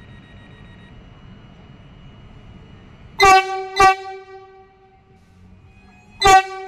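Train horn giving three short toots: two in quick succession about three seconds in, then a third near the end, each a sharp-edged blast with a rich tone. Under them runs the steady hum of a train standing at the platform.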